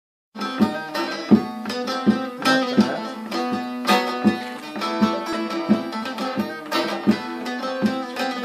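Bağlama (long-necked Turkish saz) played solo: a melody of sharply picked notes over a steady ringing low note, starting just after the beginning. It is the instrumental introduction to a Turkish folk song (türkü), before the singing comes in.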